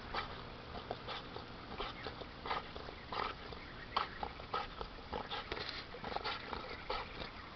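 A dog making short, irregular whimpers, coming in quick runs with brief gaps between.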